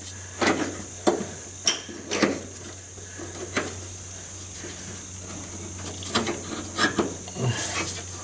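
A new inline fuel filter being handled and fitted into its holder: irregular sharp clicks and knocks of the filter and tools, about a dozen over several seconds.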